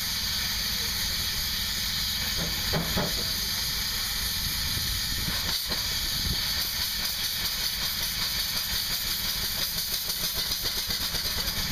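Antique steam traction engine hissing steadily as it vents steam, with two jets spurting from beneath its cylinder.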